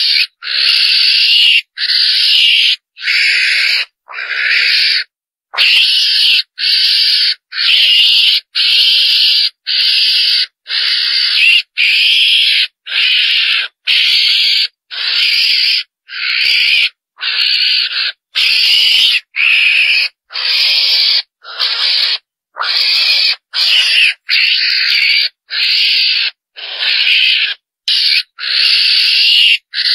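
Recorded lure call of a chồn đèn (mongoose): a long, unbroken series of scratchy, hiss-like calls, each about half a second long, coming about once a second.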